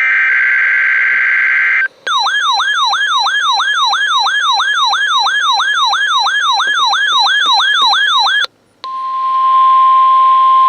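NOAA Weather Radio alert signals. For about two seconds there is the buzzing of the SAME digital data burst. Then an electronic siren-like alarm sweeps up and down about three times a second for some six seconds and stops abruptly. After a brief silence a steady single-pitched alert tone begins, with hiss.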